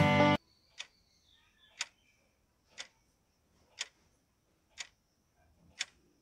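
Fiddle music cuts off abruptly just after the start, then a clock-tick countdown sound effect ticks once a second, six ticks in all.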